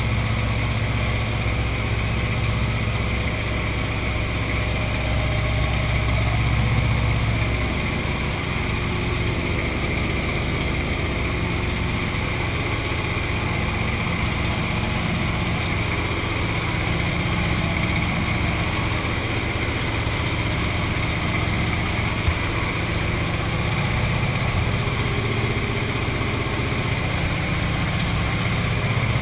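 Aircraft engine droning steadily, heard from inside the cabin of a jump aircraft; the deepest part of the drone eases about a third of the way through.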